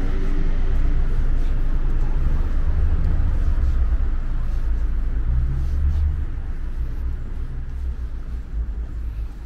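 Outdoor city street ambience dominated by a loud low rumble, strongest from about three to six seconds in and easing off toward the end.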